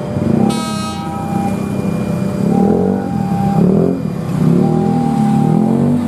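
Railway level crossing warning alarm repeating a steady two-tone chime, each tone about a second long. A short horn toot comes about half a second in, over the running engines of waiting road traffic.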